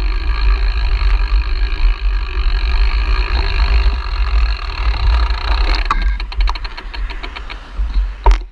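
Wind rumbling on an action camera's microphone during a bicycle ride, with a run of rapid, even ticking from the bike's coasting freewheel in the last couple of seconds and a sharp knock just before the end.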